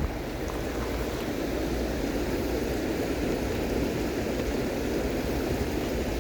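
Steady rushing of a flowing river, an even wash of water sound with a small click at the very start.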